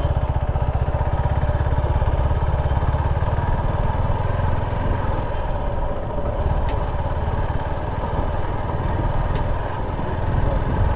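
Motorcycle engine running as the bike rides along a dirt track, a steady low drone.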